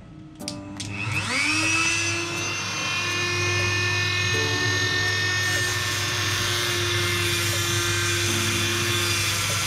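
Dremel rotary tool on a flexible shaft, a couple of clicks and then the motor spinning up with a rising whine about a second in, running steadily at high speed as its cut-off wheel grinds through a gold-plated speaker connector.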